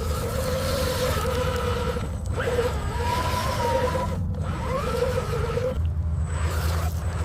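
Small electric motors and hydraulic pumps of remote-controlled construction models whining in runs of a second or two, some rising in pitch as they start, with short breaks between, over a steady low hum.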